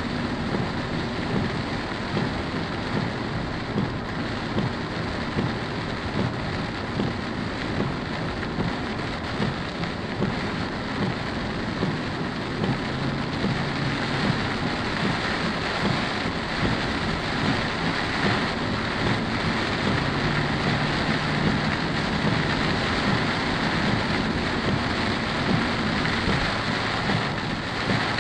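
Heavy rain pelting a car's roof and windshield, heard from inside the moving car as a dense, steady patter of drops.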